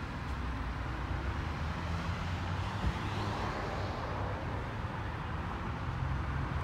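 Mark VII ChoiceWash XT in-bay automatic car wash running, heard through the bay's glass wall. Its water spray and brushes make a steady hiss over a low machinery hum.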